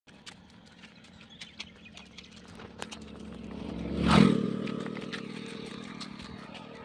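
A motor vehicle passes on the road: its engine hum builds, is loudest about four seconds in, then fades away. Light footsteps on asphalt tap throughout.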